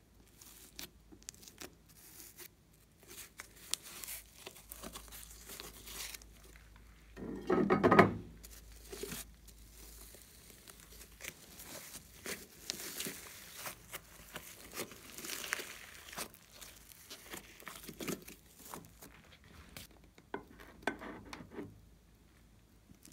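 Blue glitter slime being peeled up, stretched and folded by hand in a glass bowl: sticky crackling and popping throughout, with one louder, longer squish about eight seconds in.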